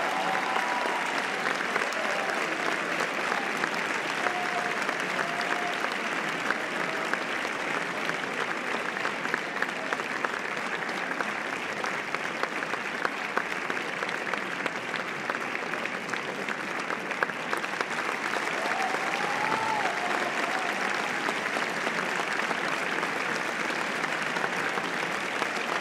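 Theatre audience applauding steadily, the dense clapping of a large crowd.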